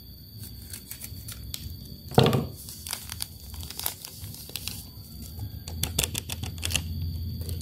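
Foil seasoning sachet of Nissin instant noodles crinkling and tearing open, with a louder handling thud about two seconds in. Seasoning powder then pours out of the sachet onto a ceramic plate with a soft hiss, among more crinkles of the foil.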